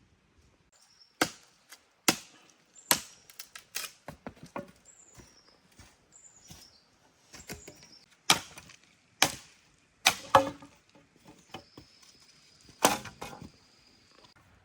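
Chopping blows on wood, sharp strikes about a second apart in two runs with a pause between. Faint short high chirps come between the blows, and a thin steady high whistle runs near the end.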